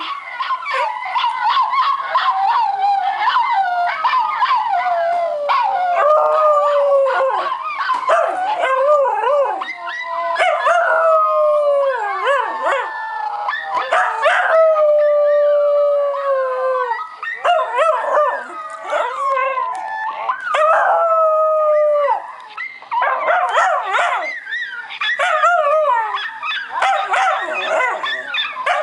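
Miniature schnauzer howling: long wavering howls, one after another, that slide down in pitch, turning into choppier, shorter calls near the end.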